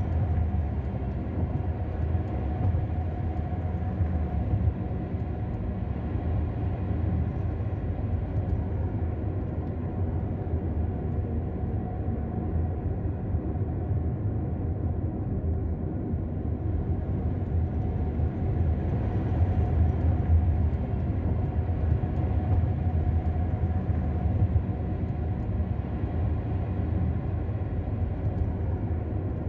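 Car driving on a road, heard from inside the cabin: a steady low rumble of engine and tyre noise.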